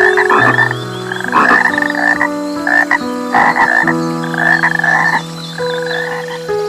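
Frogs croaking, a series of short rasping calls repeated roughly once a second, over long held notes of background music.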